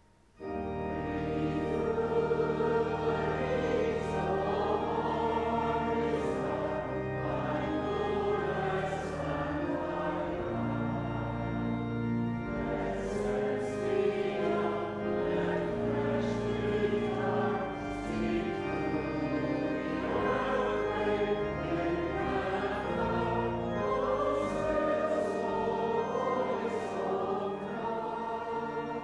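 A hymn sung by a choir with instrumental accompaniment, starting right after a brief hush.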